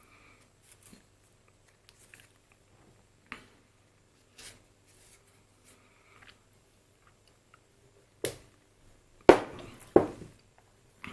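Small metal lathe topslide parts being handled and set down on a bench: scattered light clicks and taps, then two louder knocks about a second apart near the end.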